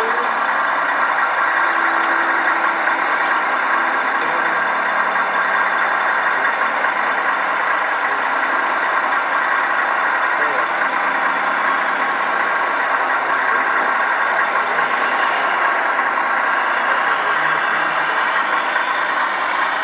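Steady simulated diesel truck engine sound from a radio-controlled tow truck, running continuously as it tows a model tractor unit.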